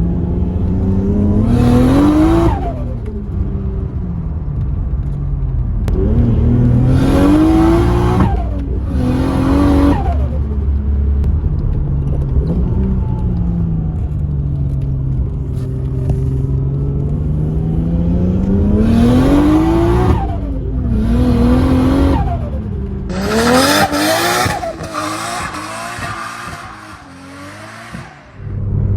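Turbocharged Nissan RB25 straight-six in an R33 Skyline pulling hard several times, revs climbing and then dropping. Each time the throttle closes there is a short hissing rush of turbo flutter.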